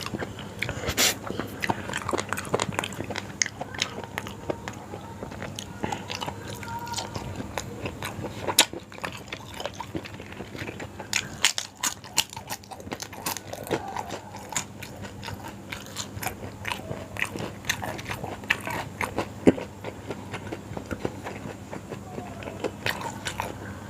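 Close-up mukbang eating sounds: wet chewing and biting of yong tau foo pieces in broth, with irregular small clicks and smacks of the mouth.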